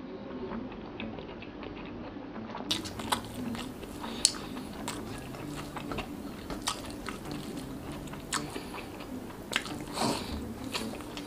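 Close-miked chewing of a mouthful of rice and sardines, with wet mouth clicks and smacks scattered throughout. The sharpest click comes about four seconds in.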